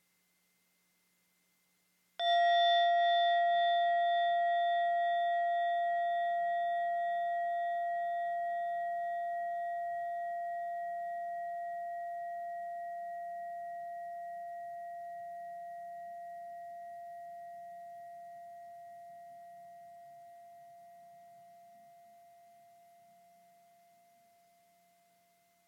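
A singing bowl or meditation bell struck once about two seconds in, then left to ring out in one long, slowly fading tone until near the end. It marks the start of a silent meditation period.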